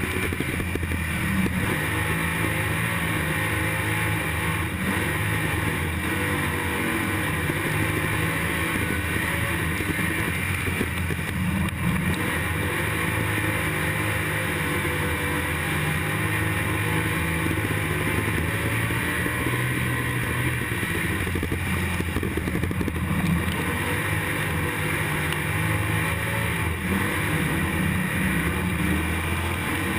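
IMCA stock car's V8 engine running hard under racing load, heard from inside the car, a steady loud engine note that rises and falls slightly in pitch around the dirt oval.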